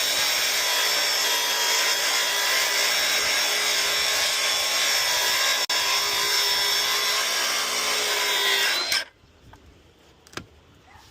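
Power tool running steadily at constant pitch while cutting the overhanging fascia board flush with the soffit; it cuts off abruptly about nine seconds in, followed by a single sharp click.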